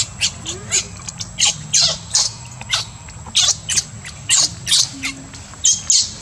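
Baby macaque screeching in a rapid string of short, high-pitched squeals, about two a second: distress cries as an adult grabs it and picks it up.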